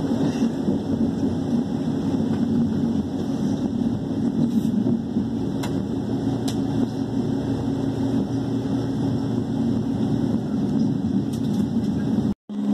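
A moving train's steady running noise heard from inside the passenger car: a low hum under a rushing rumble, with a few faint clicks. The sound cuts out abruptly for a moment near the end.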